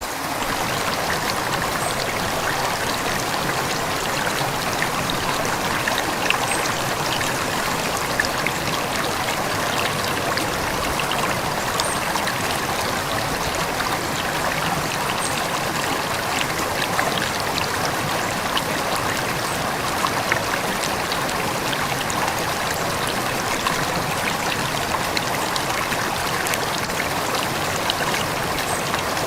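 River water flowing steadily over stones, a continuous babbling rush with small splashes and drips throughout.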